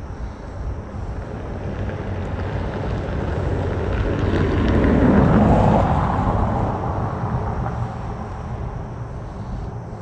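A road vehicle passing over the concrete bridge, its rumble swelling to a peak about five seconds in and then fading away.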